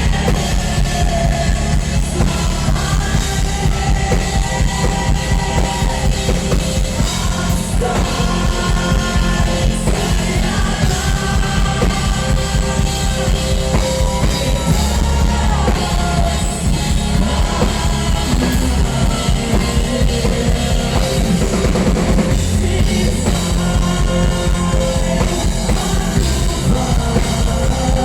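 Live rock band playing a song, with a drum kit, electric guitars and bass, and a lead vocal singing over them.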